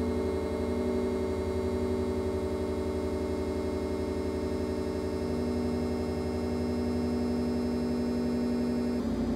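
Electronic music: sustained synthesizer drone chords over a steady pulsing bass, with the chord changing about nine seconds in.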